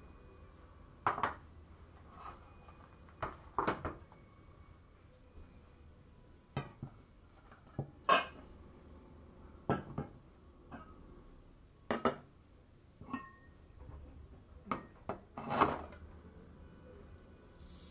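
Kitchen ware being handled on a stainless steel counter: stainless bowls and a mesh sieve set down and knocked together, giving about a dozen scattered clinks and knocks, some ringing briefly.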